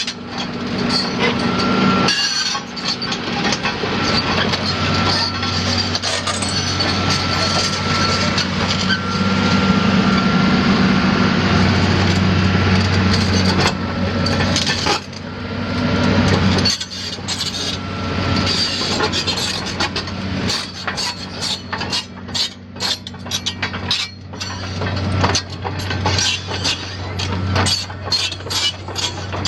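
Doosan DX300LC hydraulic excavator running, its engine giving a steady hum with a thin whine over it for about the first half, then many metallic clinks and knocks in the second half.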